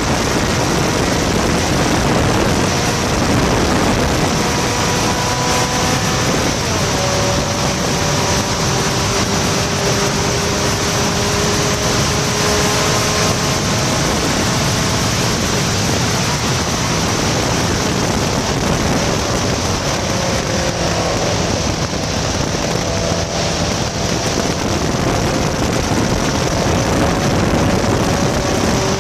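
Vintage open sports car at racing speed, recorded on board: its engine running hard under heavy wind rush, the engine note climbing slowly and dropping back at a couple of gear changes.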